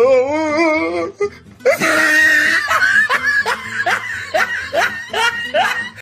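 Exaggerated laughter over music. It starts with a wavering, warbling voice for about a second, then after a short gap becomes a run of rising 'ha' bursts, two to three a second, and stops abruptly.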